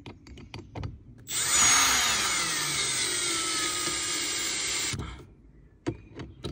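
Milwaukee cordless drill driving a bolt through a steel bracket into a rubber grommet. It runs for about four seconds, its whine falling in pitch as the bolt pulls tight, then stops suddenly. A few light clicks come before it starts and after it stops.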